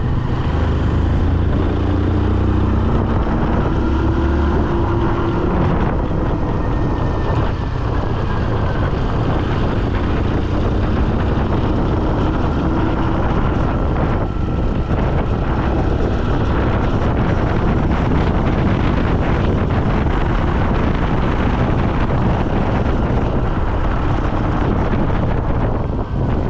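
Loud, steady wind rush on the microphone, as when riding at speed, with a faint engine hum under it in the first few seconds.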